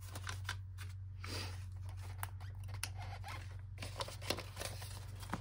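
Paper banknotes rustling and crinkling as they are handled and slipped into a binder cash envelope: a string of short, crisp snaps with two longer rustles. A steady low hum runs underneath.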